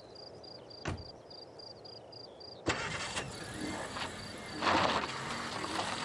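A car door shuts about a second in. Then a Daewoo Nexia sedan's engine starts and the car drives off on a gravel dirt road, with a louder surge of engine and tyres on gravel a couple of seconds later.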